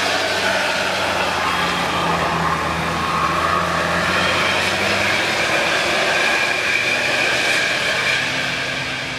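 Tour bus driving past on a hill road, its engine running loud and steady, then fading near the end as it moves away.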